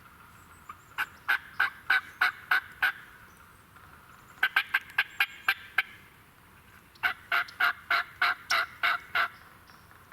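Turkey yelping: three series of loud, evenly spaced notes, about three to four a second, each series lasting one to two seconds.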